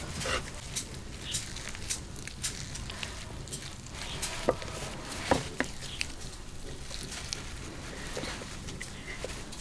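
Hands breaking lumps of black sesame filling into pieces on a wooden chopping board: scattered light taps and clicks, with a few sharper knocks about halfway through.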